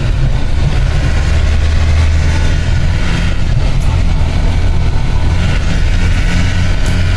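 Steady low drone of a vehicle's engine and road noise heard from inside the cabin while driving downhill on a wet road.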